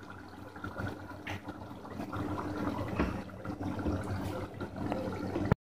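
A pot of potato-and-mince curry simmering, with faint bubbling and a few soft pops over a steady low hum.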